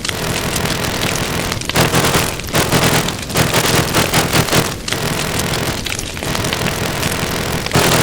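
A heavily processed bus sound effect, turned into a dense, noisy rumble with no clear horn note, broken by several short dips.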